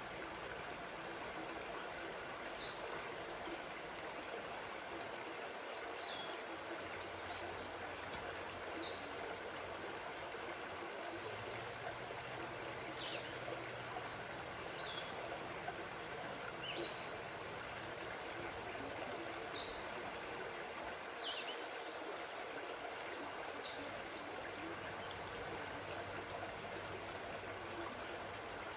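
Shallow rocky creek flowing steadily over stones, with short high falling chirps every two or three seconds.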